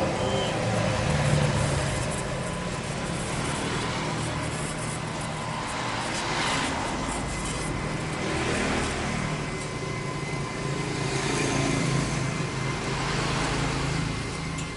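Gas welding torch flame hissing steadily against the steel of a motorcycle muffler being welded, over a low, steady motor rumble.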